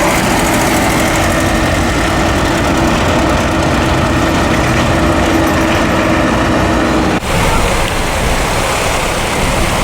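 Motor vehicle engine running steadily with a constant hum and road noise. The sound breaks off and changes abruptly about seven seconds in.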